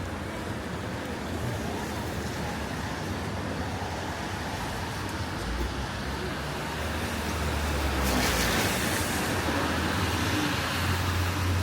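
Road traffic on a rain-wet city street: a steady hiss and low engine rumble, with a vehicle swishing past loudest about eight seconds in.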